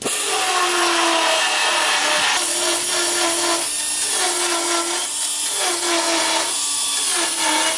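Pneumatic belt sander grinding down spot welds on rusty sheet-steel body panel: a steady whine over harsh grinding hiss, the tone breaking off briefly about every second and a half as the sander is worked along the flange.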